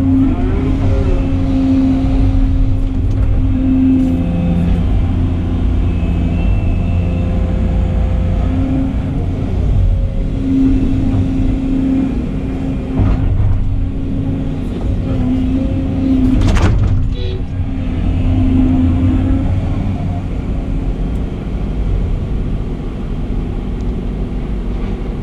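Volvo excavator's diesel engine and hydraulics heard from inside the cab: a steady low drone with a hum that swells and fades as the boom and bucket work, and a single sharp clank about two-thirds of the way through.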